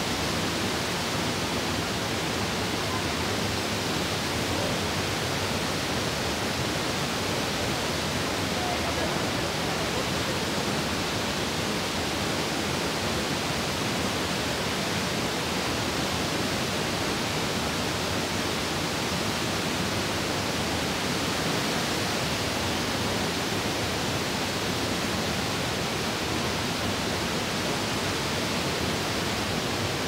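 Borhill (Bophill) waterfall pouring into its plunge pool close by: a dense, steady rush of falling water that never lets up.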